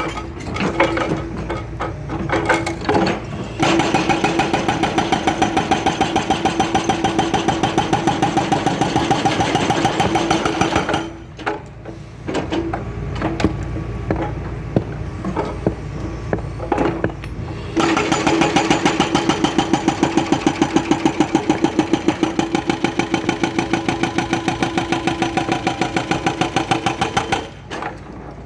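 Hydraulic breaker on a Hitachi Zaxis 210LC excavator hammering asphalt in rapid, even blows. The hammering stops for several seconds around the middle, leaving the excavator's engine running with a few knocks, then starts again and goes on until near the end.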